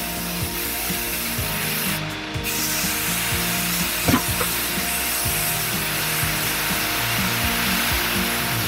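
Aerosol spray-paint can hissing as it sprays a PC case's steel frame, with a short break about two seconds in and a single knock about four seconds in.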